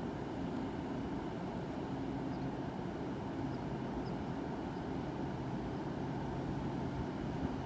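Metro-North M8 electric multiple-unit train standing at the platform, its electrical and air-conditioning equipment giving a steady low hum with a few held tones.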